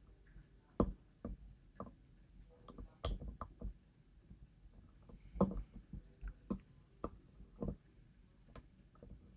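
Small, irregular metallic clicks and taps of a lock pick working the pins inside a DOM IX 10KG dimple lock cylinder under tension, with a short cluster of quick clicks about three seconds in.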